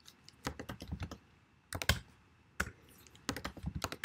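Typing on a computer keyboard: short runs of key clicks with brief pauses between them.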